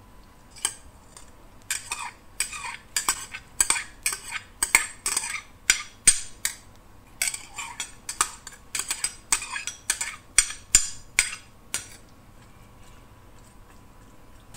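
Metal spatula scraping and clanking against the sides of a stainless-steel wok while stirring raw squid pieces, in quick irregular strokes that stop about twelve seconds in.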